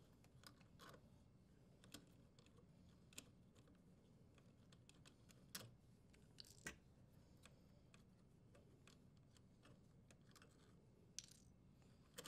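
Near silence broken by faint, scattered small clicks and rustles as plastic twist-on wire nuts are unscrewed from the power wires and the wires are handled.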